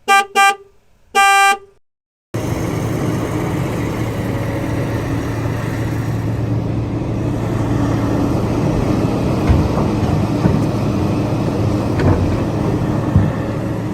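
A vehicle horn toots a few times in short honks, then steady road-traffic noise with engines running carries on for about twelve seconds.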